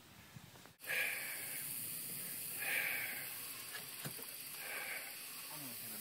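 Steady hiss, with a soft sound recurring about every two seconds; the sound changes abruptly about a second in.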